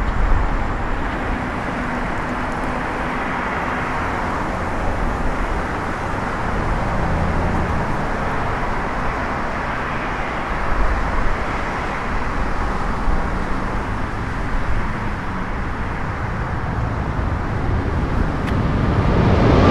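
Jet roar of a Boeing 777-200LR's GE90 engines at takeoff power, a steady distant rumble that swells sharply near the end as the climbing airliner comes almost overhead.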